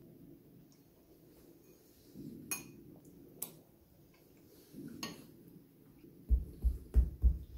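Metal spoon clicking against a ceramic soup bowl, with soft eating and slurping sounds, while soup is eaten. Near the end come four loud, low, muffled thumps in quick succession.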